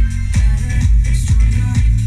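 Dance music with a heavy bass line and a steady beat of about two beats a second.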